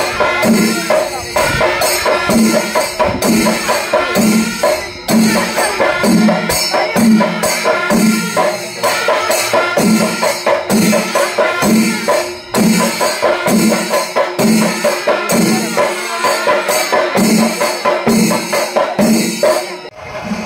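Panchavadyam, the Kerala temple percussion ensemble, playing loudly: a steady beat of drum strokes, about two a second, under bright clashing cymbals. It breaks off near the end.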